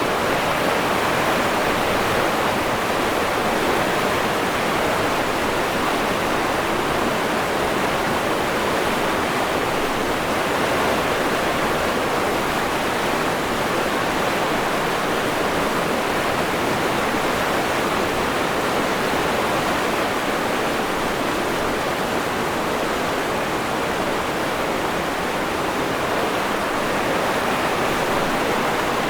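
River water rushing steadily, an even unbroken roar of flowing water.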